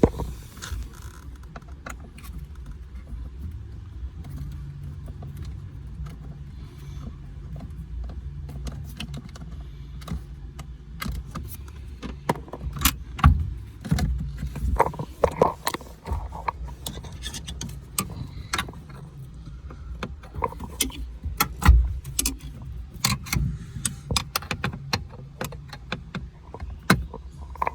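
A steady low vehicle hum, with metallic jingling, clinks and knocks from about ten seconds in, like tools or parts being handled; the loudest knocks come about halfway through and again near the end.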